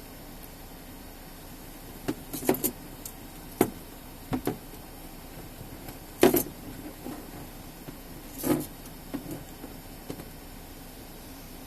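A series of about ten short knocks and clicks, the loudest about six seconds in, over a steady low hum.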